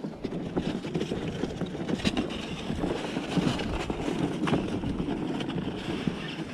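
Boots crunching and scuffing on bare lake ice in a steady walking rhythm, with the jacket rustling against a chest-mounted camera.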